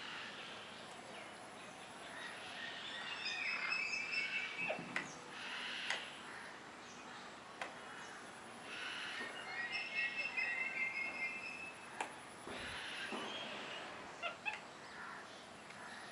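Birds chirping in two spells of rapid, high chatter over a steady background hum.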